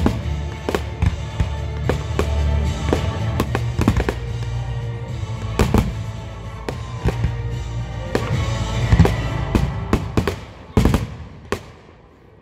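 Aerial firework shells bursting in rapid succession over steady music. The music fades out near the end, leaving a few last loud bangs.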